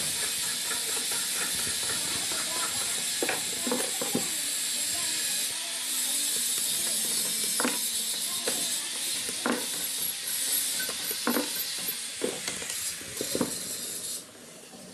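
Scattered light metallic clicks and taps of a screwdriver and hand-fitted parts on a sewing machine head, about ten of them, over a steady hiss that drops away near the end.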